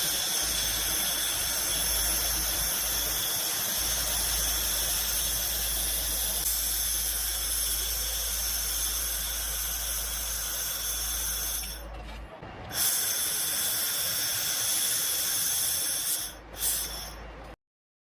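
Handheld 1500 W fiber laser welder working on thin stainless steel tube: a steady hiss with several high whining tones over it. The hiss drops away briefly about twelve seconds in and again near the end, then stops.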